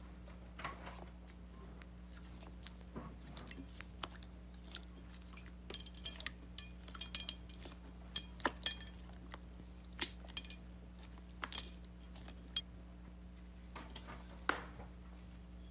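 Slime being squeezed and poked, giving off irregular sharp clicks and pops, sparse at first and coming in quick clusters in the middle, over a steady low hum.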